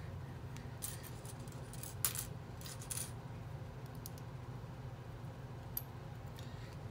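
Small plastic Lego pieces clicking and clattering as hands sort through them on a wooden table: a run of clicks about one to three seconds in, loudest around two seconds, then a few single clicks. A faint low hum runs underneath.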